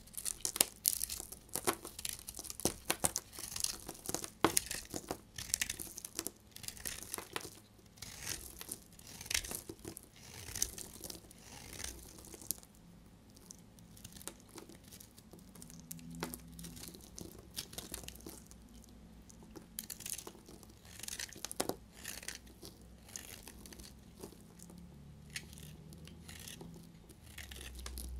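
Snap-off utility knife blade shaving a bar of dried-out soap: a run of crisp scraping crackles as curls and crumbs break away, dense over the first dozen seconds and sparser after.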